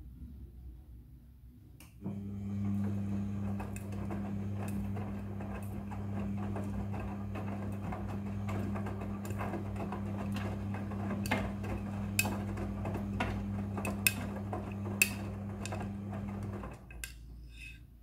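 Midea front-loading washing machine tumbling a wet load of clothes: a steady motor hum with the laundry sloshing in the drum and a few sharp clinks of zippers striking the drum. It starts about two seconds in and stops abruptly near the end, the pause between turns of a wash cycle.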